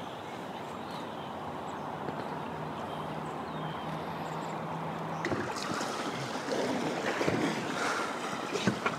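River water flowing steadily. About five seconds in the water noise grows louder and more uneven, with a few sharp knocks and clicks.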